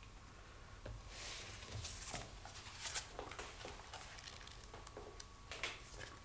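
Paper pages of a small bound book being leafed through: a soft rustle, then a series of short, sharp page flicks.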